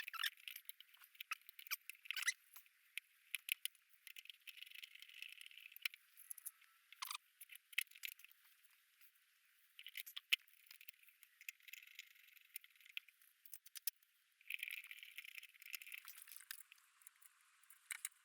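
Faint, scattered clicks and a couple of short scrapes as an LED headlight is handled and seated into a motorcycle's headlight housing.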